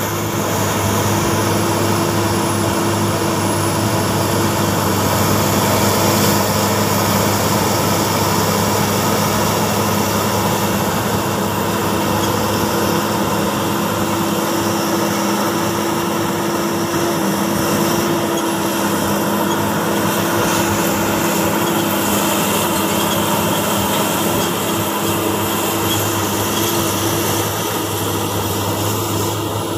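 Diesel engine of a hydraulic excavator running steadily while it pushes a mired motor grader, with a faint high whine that slowly rises and falls in pitch.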